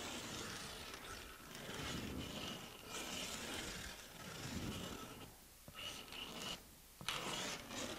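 A foam gun dispensing low-expanding urethane foam adhesive, hissing in a series of spurts as beads are run onto a foam board. The spurts get shorter and more broken over the last few seconds.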